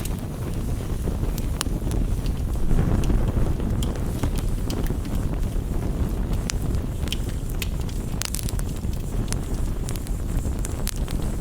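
Campfire crackling, with sharp pops scattered irregularly over a steady low rushing of rain.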